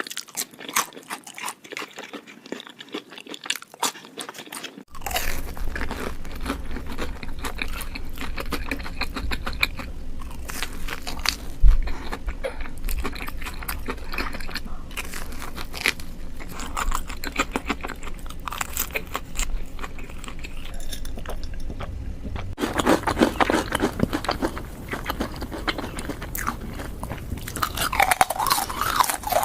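Close-up eating sounds: crunchy bites and chewing, a dense run of crisp crackles and clicks. The background changes abruptly twice, about five seconds in and again past the twenty-second mark, and one louder knock stands out near the middle.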